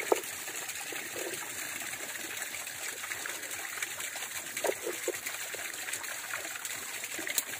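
Stream water trickling and running steadily.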